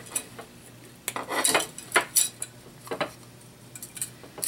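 Plastic and metal parts of a disassembled airsoft rifle being handled, with the pistol grip being worked off the lower receiver: a string of irregular clicks and knocks.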